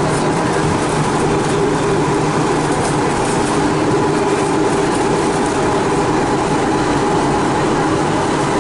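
Inside a Turin Metro VAL 208 rubber-tyred driverless train car running at speed through a tunnel. The tyres and running gear make a steady, loud rumble, with a few held humming tones over it.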